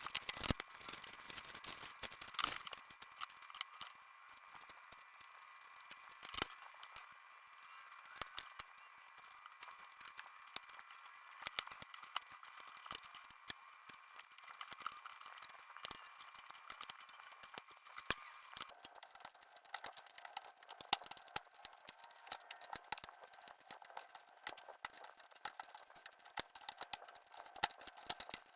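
Many quick clicks and rattles of packaging and clamps being handled, over a steady high hum whose pitch drops about two-thirds of the way in.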